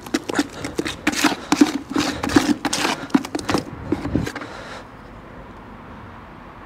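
Small trowel stirring runny Easi-Fill filler and scraping it around the inside of a plastic bucket: a quick, irregular run of scrapes and wet slaps that stops about five seconds in. The mix is still slightly too runny.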